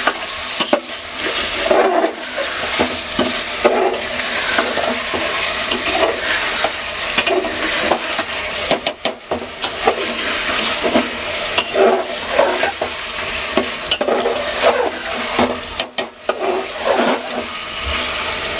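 Chicken masala sizzling as it is fried down in a metal pot, while a metal spatula scrapes and stirs it against the pot's sides and base. A few sharp clicks of metal on metal stand out about nine and sixteen seconds in.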